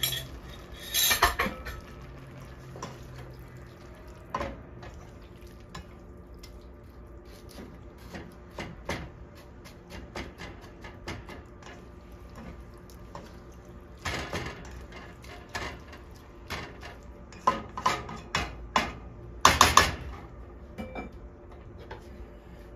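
A spatula stirring ground-meat chili in a stainless steel pot, making irregular scrapes and clicks against the pot, with a wet stirring sound from the sauce. The loudest knocks come in a cluster near the end.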